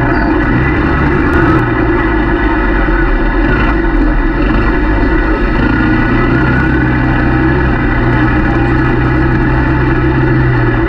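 ATV engine running steadily while the quad rides along a dirt trail, a low drone that shifts up slightly in pitch about six seconds in.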